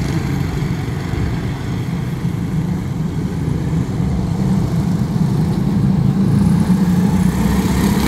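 A pack of Honda-powered quarter midget race cars running at speed around a dirt oval, their small single-cylinder engines droning together, growing louder in the second half as the cars come close.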